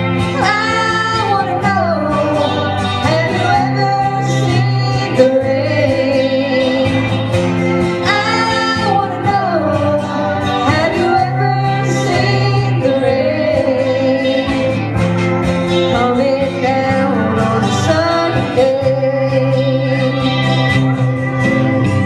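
A live country-rock band playing, with guitars and a bass line under a gliding lead melody.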